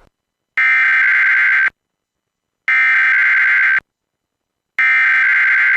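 Emergency Alert System SAME header: three identical bursts of buzzing digital data tones, each about a second long with a second's silence between, encoding the start of a Required Weekly Test. The third burst cuts off at the very end.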